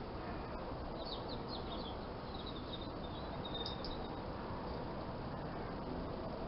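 Small garden birds chirping: a run of short, high chirps in the first half, over a steady background hiss and rumble.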